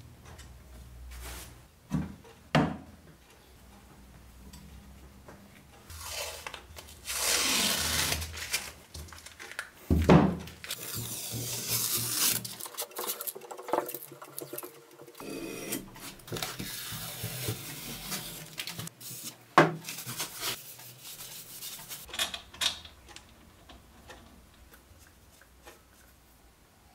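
Steel parts of a homemade small-wheel belt grinder attachment being handled and fitted together by hand: scattered clinks and sharp knocks, with stretches of metal scraping and sliding against metal.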